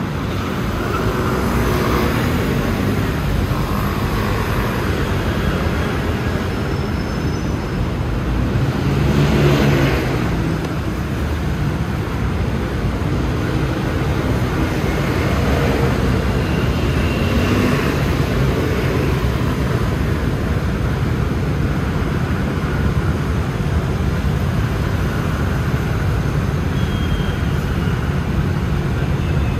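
Motor scooter riding in city traffic: a steady blend of its engine, wind and road noise, with other traffic around. The sound swells briefly about nine seconds in.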